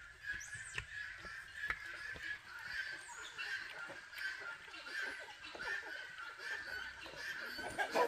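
Chickens calling from a coop: a steady run of high, nasal calls repeating about twice a second.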